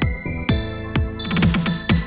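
Electronic background music with a steady kick drum at about two beats a second over held synth notes, and a quick drum roll in the second half.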